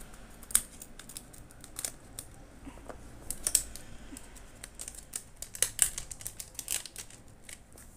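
Scissors snipping through a trading-card booster pack's foil wrapper, then the wrapper crinkling and rustling as the cards are pulled out: an irregular run of light clicks and crinkles.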